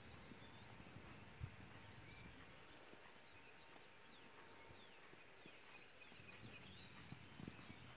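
Near silence with faint hoofbeats of a horse trotting on sand footing, and one soft thump about a second and a half in.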